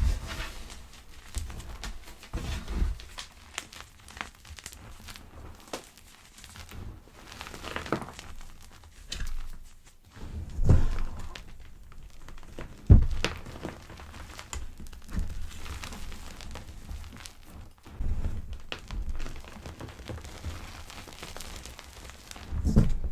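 Pebbles of gym chalk being crushed: irregular dry crunches and soft crackles mixed with dull thumps, the loudest thumps about eleven and thirteen seconds in.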